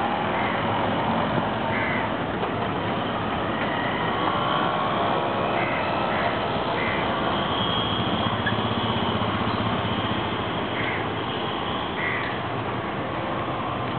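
Crows cawing several times at irregular intervals over the steady running of engines, as motor scooters and a motorcycle ride off a river ferry alongside its idling engine.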